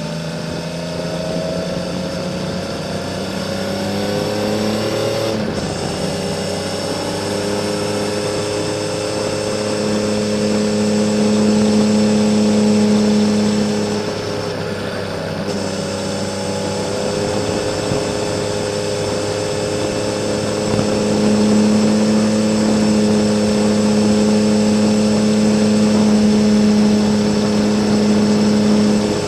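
Honda CBX 1000's six-cylinder engine running through a Kerker 6-into-2 exhaust under way. The engine note rises for about five seconds, drops with a gear change, then holds a steady pitch, growing louder twice as the throttle opens.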